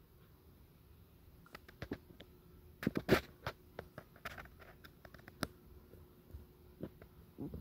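Scattered faint clicks and taps against a quiet background, with a quick cluster of louder ones about three seconds in.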